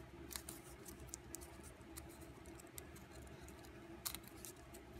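Faint crackles and clicks of stiff archival drawing paper being pinched and creased between fingers while a small accordion-pleated Miura-ori fold is worked, a handful of scattered clicks over a low, steady hum.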